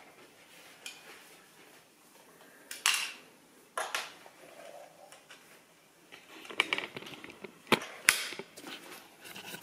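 Plastic Lego pieces clicking and clattering as they are snapped together and set into a built model on a hard countertop: a few sharp clicks in the middle, then a quick run of them near the end, the loudest there.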